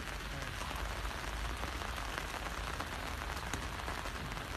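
Steady rain falling, with scattered sharp ticks of drops striking the umbrella just overhead.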